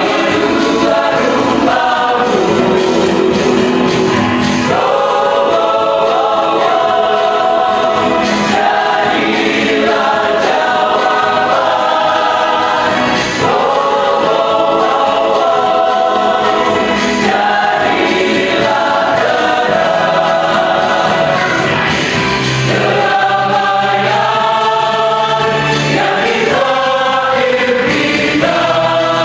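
A large mixed church choir singing a gospel song in full chords, the voices moving together from phrase to phrase.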